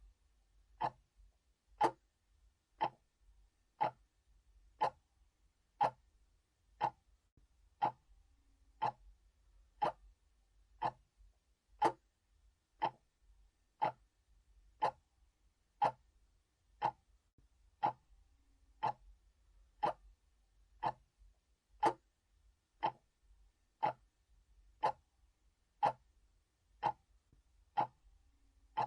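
Analog clock ticking steadily, one sharp tick each second.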